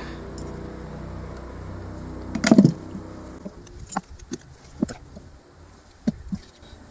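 Parts being handled in an engine bay: a loud clunk about two and a half seconds in, then a scatter of light clicks and knocks. A steady low machine hum underneath dies away partway through.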